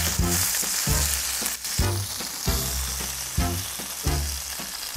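A beef roast searing in very hot olive oil in a stainless steel pan, giving a steady sizzle as the crust forms, with now and then the click of the forks against the pan as the meat is turned.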